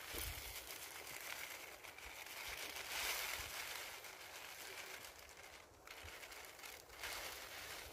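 Steady hissing with a few faint crackles from a small fire in a tin-can camp stove under a steaming, lidded pot, swelling about three seconds in, with some close handling rustle.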